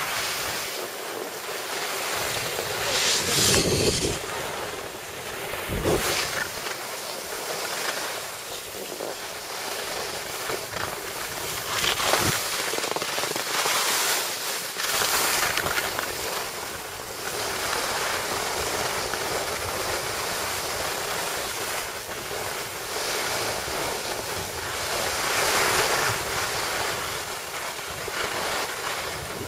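Skis sliding and scraping over packed snow, a continuous hiss that swells and eases with a few brief louder rushes, with wind buffeting the microphone.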